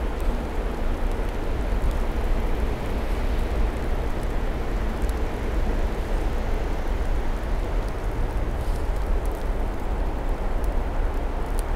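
Steady rushing noise of wind and blowing snow with a heavy low rumble, with an electric locomotive approaching through it.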